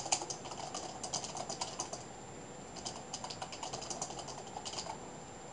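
Typing on a computer keyboard: two quick runs of keystrokes with a short pause of about a second between them.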